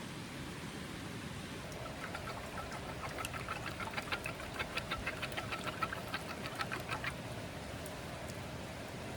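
Steady rain falling, an even hiss. From about two seconds in to about seven seconds in, a quick run of short, high ticks, about four or five a second, sounds over it.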